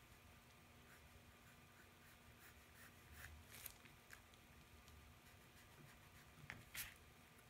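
Faint scratching of a graphite pencil drawing light curved strokes on paper, in short repeated strokes, with a couple of louder scrapes about halfway and near the end.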